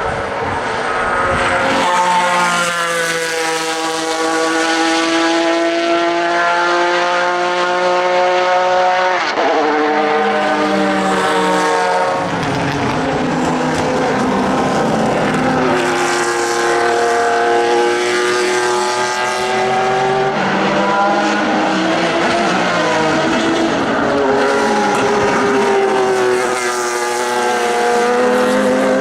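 Pilbeam MP91 LMP2 prototype's JPX/Mader V6 race engine, loud, pulling hard with its pitch climbing steadily for several seconds at a time. The pitch drops sharply about nine, twelve and twenty seconds in, then climbs again.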